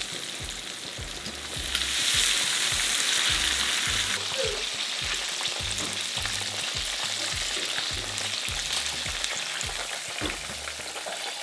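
Breaded chicken pieces deep-frying in hot oil: a steady crackling sizzle, louder for about two seconds shortly after the start.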